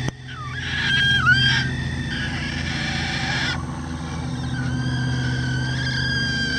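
Bantam rooster giving its hawk alarm call, the warning for an aerial predator. First come short high screams that dip in pitch and swing back up, about half a second and a second in. From about the middle until near the end there is one long high note, held steady. A steady low hum runs underneath.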